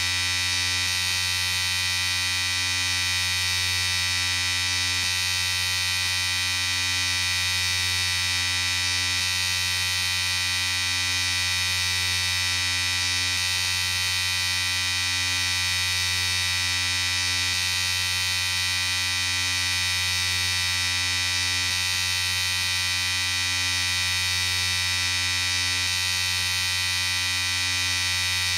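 Electric shaver running continuously with a steady, even buzz and hum.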